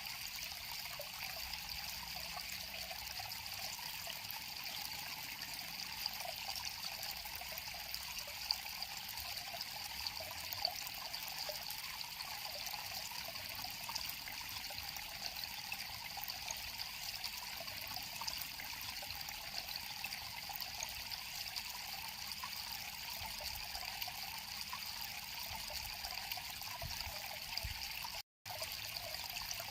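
River water flowing steadily. The sound cuts out completely for a split second near the end.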